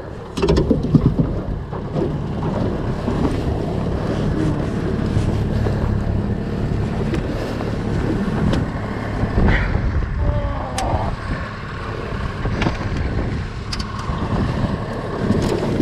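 Small boat's outboard motor running steadily, with wind buffeting the microphone and water splashing against the aluminium hull.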